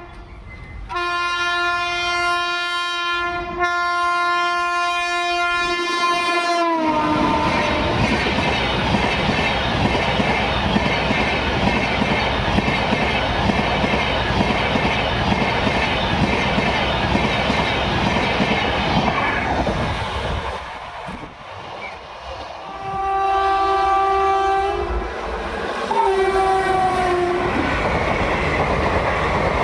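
Indian Railways locomotive horn sounding a long blast, broken briefly once, its pitch falling as the train passes, followed by the steady noise of the train running by. Later the horn sounds twice more in shorter blasts, each dropping in pitch at its end, and the passing-train noise returns.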